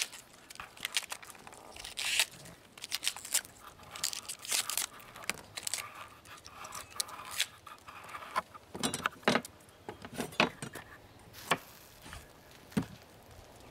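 Outer leaves of a globe artichoke snapped and torn off by hand: irregular crisp snapping and tearing. Near the end come a few firmer knife cuts on a plastic cutting board.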